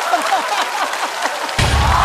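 Studio audience laughing and applauding, then a sudden deep booming sound effect hits about one and a half seconds in.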